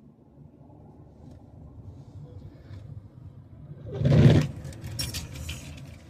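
Low vehicle rumble building steadily, broken about four seconds in by a loud half-second thump-and-rush, then a few sharp clicks and rattles.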